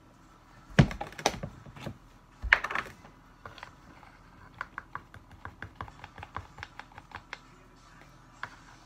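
A spice container shaken and tapped over a plastic mixing bowl: two bursts of louder knocks, then a run of light clicks about two or three a second.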